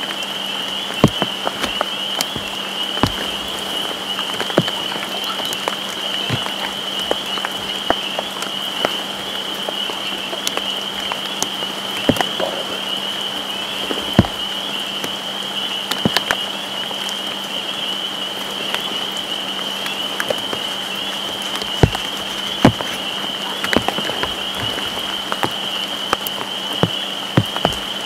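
Steady rain falling, with irregular sharp drops ticking close by, over a continuous high-pitched tone.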